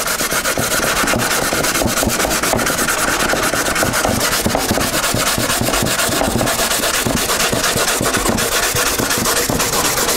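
Coarse 80-grit sandpaper rubbed back and forth by hand over the fiberglassed, resin-coated balsa aileron of a model airplane wing, sanding down the final coat of resin. A steady dry scratching of rapid strokes without a break.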